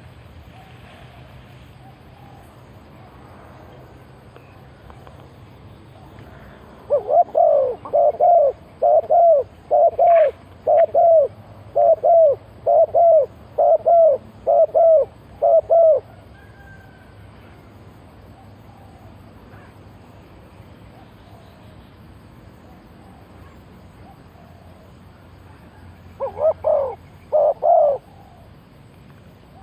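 Spotted dove cooing: a run of about ten short coos roughly one a second, then a pause and two more coos near the end.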